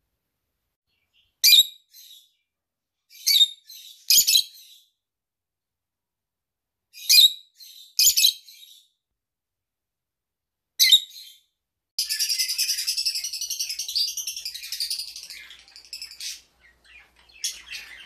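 A pet lovebird giving short, high, sharp chirps, singly and in pairs, then a continuous run of high chattering for about four seconds, followed by a few more chirps near the end.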